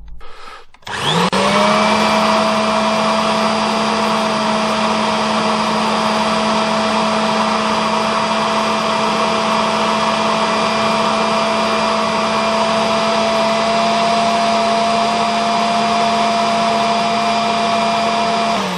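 Kirby Sentria vacuum motor and fan, running with the belt off on an airflow meter. It starts about a second in, climbs quickly to a constant tone and runs steadily at full speed, then is switched off near the end and winds down in pitch. The reading is nearly 122 CFM, which is about right for this machine.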